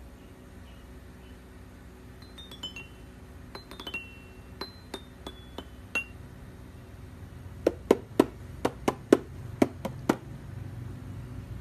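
Toy xylophone's metal keys struck with a mallet: two quick runs of notes going down the scale, then a few single ringing notes. After that comes a string of about ten sharp knocks, roughly four a second, as the mallet taps on the wooden board.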